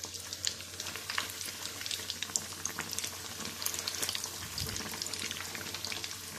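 Hot oil sizzling and crackling steadily around breadcrumb-coated chicken patties frying in a kadhai, with many small pops.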